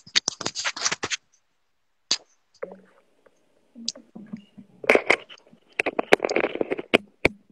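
Handling noise on a phone's microphone: scraping and rustling with many small clicks in a flurry at the start, then a denser stretch about five seconds in, and two sharp clicks near the end. This is the sound of the phone and its earphones being fumbled with while the earphones are put on.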